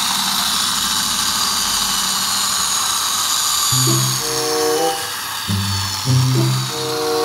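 Battery-operated toy car running: its small electric motor whirs steadily with a high whine. About four seconds in, a simple electronic tune starts playing over it.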